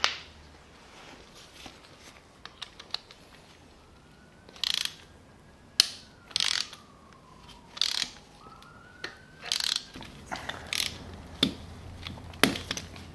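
Motorcycle roller chain clicking and rattling as it is handled at the rear sprocket: a sharp click at the start, then about eight short runs of quick metallic clicking, like a ratchet.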